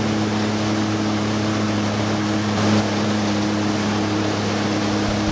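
Jet ski engine running at a steady pitch under way, with water rushing and spraying around the craft.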